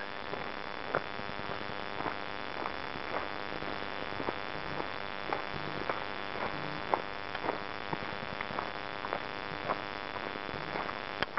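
Footsteps on a gravel track at a steady walking pace, about two steps a second, over a steady hiss.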